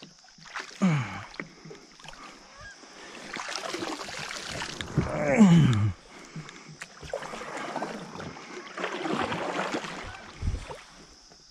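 Feelfree Lure 10 sit-on-top kayak being worked on the water: paddle splashes and knocks against the hull, with drawn-out creaks falling in pitch about one second and about five seconds in, the second the loudest, and a low thump near the end.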